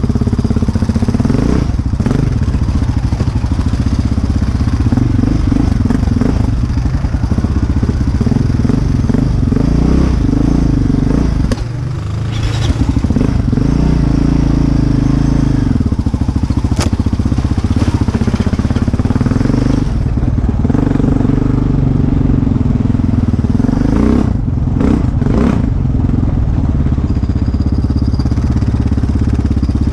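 Sport ATV engine running close to the microphone while riding a dirt trail, its pitch rising and falling with the throttle. The throttle is briefly let off about twelve seconds in, and a few sharp knocks come near the end.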